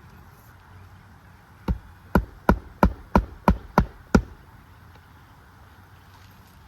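Hammer driving a roofing nail to fasten an asphalt shingle: eight quick, sharp strikes, about three a second, starting near two seconds in.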